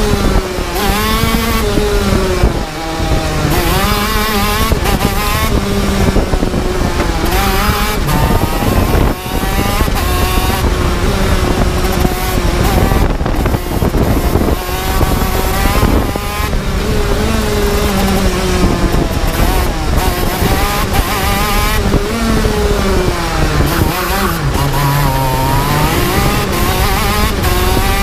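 TM K9C 125 cc two-stroke engine of a KZ shifter kart at racing speed, recorded onboard, its pitch climbing and dropping again and again as the kart accelerates out of corners and brakes into them.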